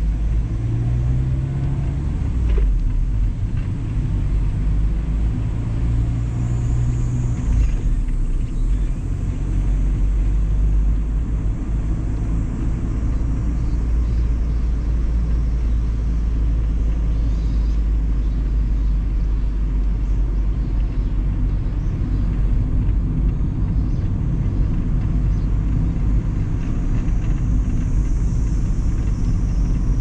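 Mazda ND Roadster's four-cylinder engine and road noise while driving, picked up by a car-mounted action camera's microphone. The engine note shifts over the first several seconds, then settles into a steady low rumble.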